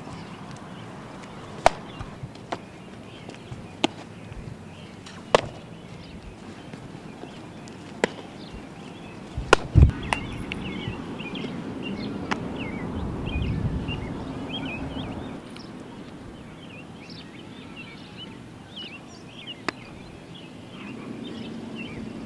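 Scattered sharp pops of a baseball being hit and caught during fielding practice, about ten in all, with small birds chirping throughout.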